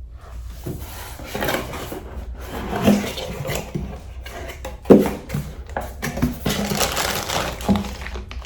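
Rustling and clattering of a shower head set being unpacked from its box and packaging, with a few sharp knocks, the loudest about five seconds in.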